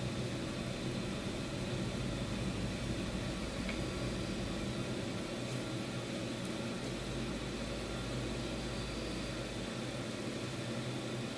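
Steady background hum and hiss of room noise, even throughout with no distinct events, like a fan or air-handling unit running.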